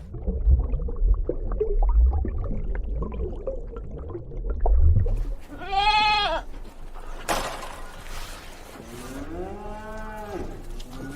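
Farm animals calling: one high bleat about six seconds in, then a lower, longer call near the end. Before the calls there is a low rumble with scattered knocks.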